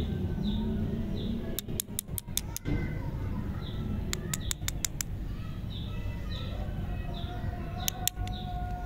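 Birds chirping: short, repeated high calls, with several bursts of rapid sharp clicks and a steady low hum underneath.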